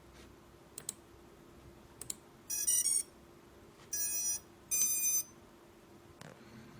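Readytosky 1804 brushless motors sounding electronic ESC tones: three short bursts of beeping, about half a second each, the first a quick run of changing pitches and the other two steady. A couple of sharp clicks come before the tones, over a faint steady hum.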